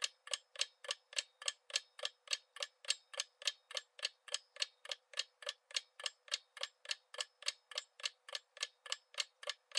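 Countdown-timer sound effect of a ticking clock: even, thin ticks at a little over three a second, marking the time left to guess.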